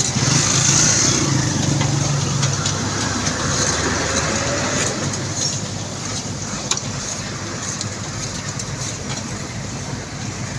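Engine of heavy road-construction machinery running steadily, a little louder in the first two seconds or so.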